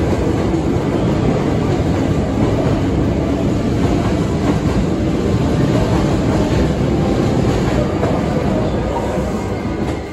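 Hankyu commuter train pulling out along the platform, its wheels and motors running steadily on the rails. The sound eases a little near the end.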